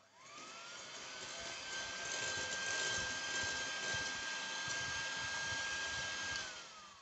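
Philips electric hand mixer running, its beaters whisking liquid cake batter in a glass bowl. The motor whine rises as it starts, holds a steady pitch, then winds down near the end as it is switched off.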